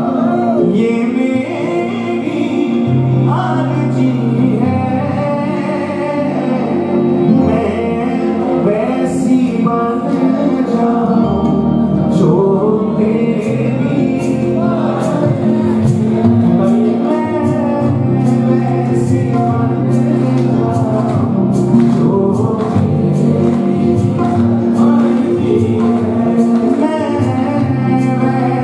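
Male bhajan singers singing a Hindi devotional song over held accompanying notes. From about nine seconds in, a quick, steady beat of sharp clicks joins the music.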